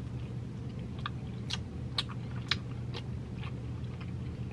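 A mouthful of chicken quesadilla being chewed, with sharp crunchy clicks about twice a second.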